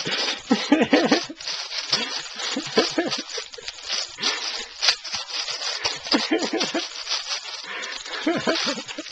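Crinkly plastic bag crackling as a baby kicks and stamps on it with his feet, with short baby squeals and coos in between.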